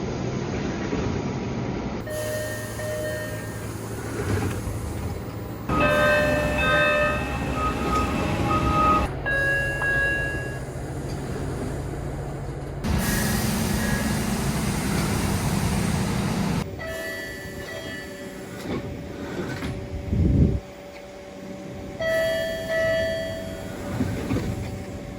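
MBTA Orange Line subway train exterior door chimes, heard in a string of short clips that cut abruptly from one to the next, each with a few chime tones. The train's motors and rail noise run underneath.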